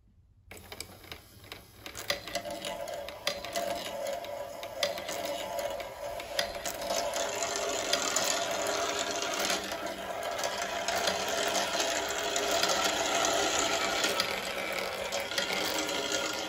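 Small electric motor driving a 3D-printed plastic chain-and-bucket marble lift, with a steady clatter and many small clicks as steel balls roll through the plastic track. It starts about half a second in and builds over the next couple of seconds.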